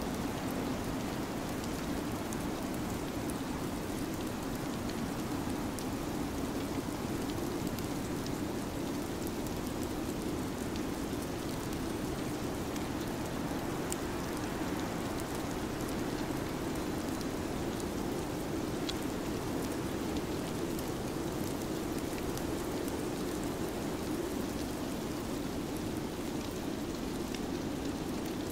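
Steady, unbroken hissing noise ambience, a rain- or storm-like rush with a deeper band at its bottom and faint scattered ticks, constant in level throughout.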